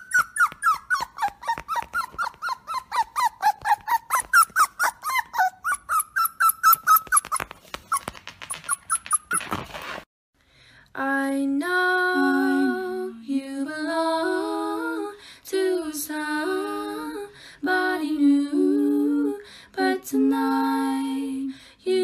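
A puppy's crying whimpers, a rapid string of high yelps about four a second, wavering up and down in pitch, used as the TikTok 'hurt puppy' sound. After a short break at about 10 seconds, a person hums a slow tune in held, stepping notes.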